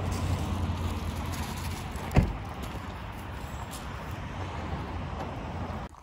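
A pickup truck door slams shut with one sharp knock about two seconds in, over a steady low rumble that cuts off abruptly near the end.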